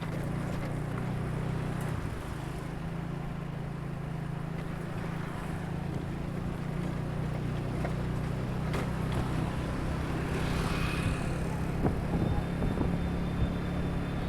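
A vehicle engine running steadily on the move, a constant low hum over road and traffic noise.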